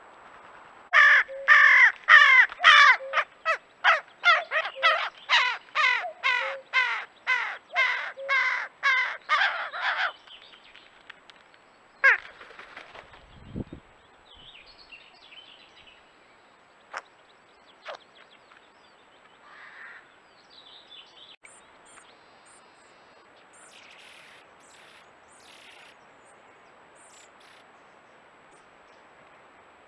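A corvid calling close to the microphone: a rapid series of more than twenty loud, caw-like calls, two to three a second, that stops about ten seconds in. One more call follows a couple of seconds later, then only faint high chirps.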